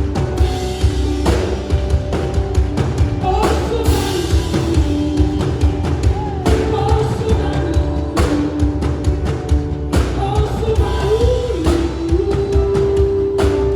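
Contemporary Christian worship song with a melodic vocal line over a band with drum kit, with cymbal crashes every couple of seconds and one long held note near the end.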